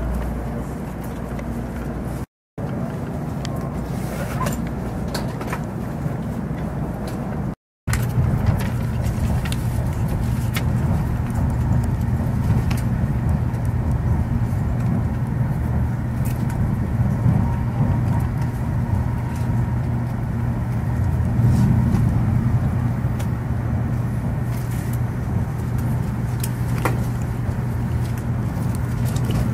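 Shinkansen Nozomi bullet train cabin noise: a steady low hum and rumble, broken twice by brief dropouts in the first eight seconds and louder and fuller after the second.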